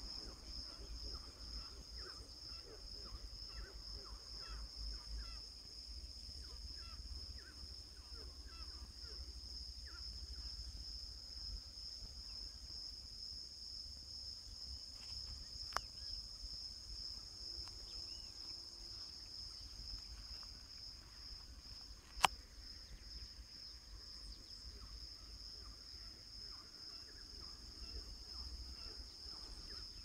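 Crickets trilling in a steady, high-pitched chorus. Two sharp clicks break through past the middle, about six seconds apart.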